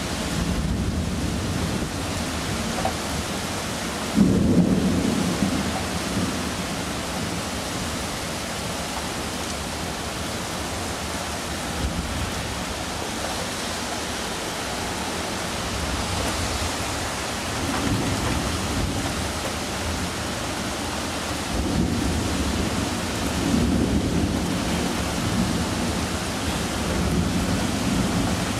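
Thunderstorm: steady rain with rolling thunder. The loudest is a sudden clap about four seconds in that rumbles on for a couple of seconds, and more low rumbles come near the middle and toward the end.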